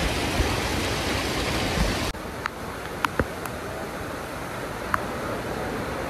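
Water of a cascading waterfall pouring down, a steady rushing hiss. About two seconds in it drops abruptly to a quieter, more distant rush, with a few sharp splashes of water drops.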